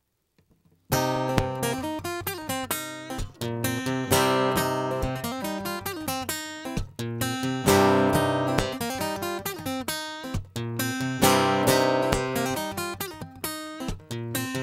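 Near silence for about a second, then an acoustic guitar strummed in a rhythmic chord pattern, the instrumental intro to a song.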